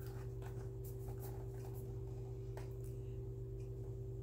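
Faint rustles and light clicks of an object being handled, a few scattered brief sounds over a steady low hum.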